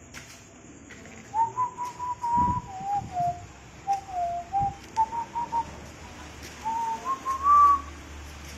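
A person whistling a wandering tune in short phrases: a clear single tone stepping up and down. A few soft low thumps sound underneath.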